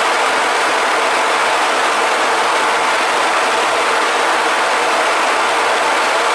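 Steady rushing engine and airflow noise inside a Su-27 fighter's cockpit in flight, even throughout with no changes.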